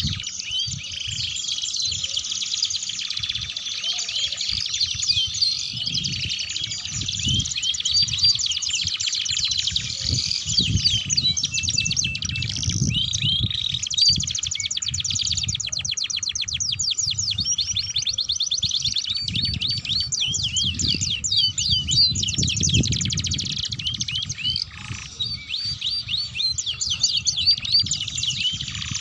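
Domestic canaries singing continuously, a long song of fast trills and rolls with only brief breaks.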